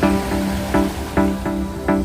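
Background music with a steady beat of pitched notes.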